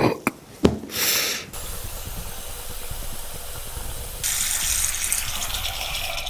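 Bathroom tap running into the sink, a steady rush of water that grows louder about four seconds in, after a few brief knocks near the start.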